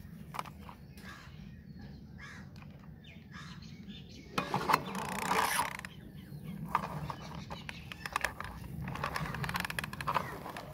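A plastic toy car being handled and run over cloth, with scattered clicks and rattles from its plastic parts. The loudest part is a harsh, noisy burst lasting about a second and a half, starting about four seconds in.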